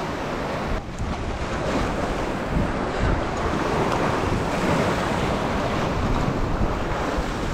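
Ocean waves washing against a rock ledge, with wind noise on the microphone.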